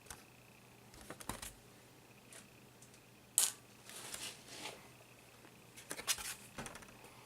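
Small clicks, taps and brief scraping of laptop parts being handled during disassembly. One sharp click about three and a half seconds in is the loudest sound, followed by a moment of rubbing and a few more clicks near the end.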